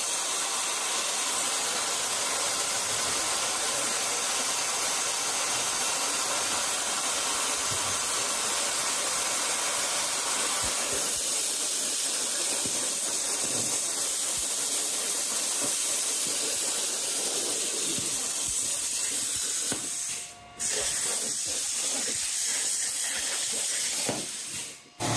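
CNC plasma cutter torch cutting 12-gauge steel plate, its arc giving a steady, loud hiss that drops out briefly twice near the end.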